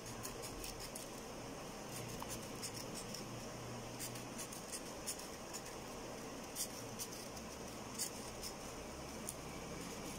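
Scissors snipping through a paper circle to cut it into a spiral: faint, irregular snips, with a few sharper clicks partway through.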